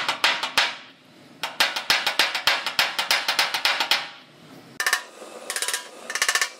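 Body hammer tapping a small dent out of a sheet-metal fender, the panel held up by hand. Quick light taps at about five a second in runs, with short pauses about a second in and around four seconds in; the taps near the end ring more.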